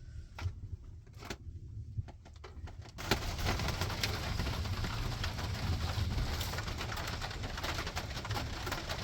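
Hail falling: a dense, continuous patter of many small hits that starts abruptly about three seconds in, after a few scattered clicks.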